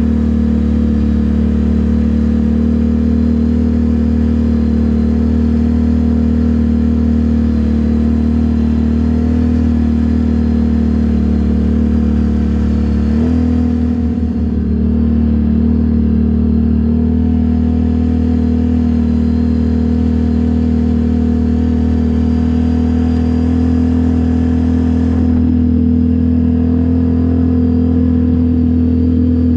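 ATV engine running at a steady speed while riding on a trail. The engine note shifts briefly about 13 seconds in and settles back a few seconds later.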